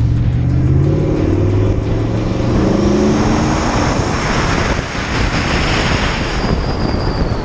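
Twin-turbocharged 5.0 Coyote V8 of a 2016 Ford F-150 accelerating hard on about 6 psi of boost: the engine note climbs in pitch, drops at an upshift about two seconds in and climbs again, then gives way to a loud rush of air and road noise. A thin high turbo whine runs over it and slowly falls in pitch near the end.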